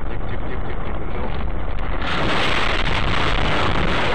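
Steady road and engine noise heard inside a moving car. About two seconds in, a louder rushing noise takes over as the car ploughs into deep snow beside the road.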